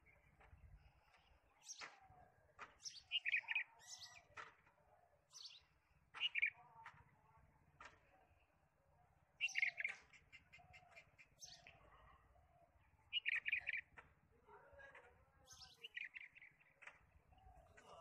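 Bulbul calling: short phrases of quick chirps, repeated every second or two.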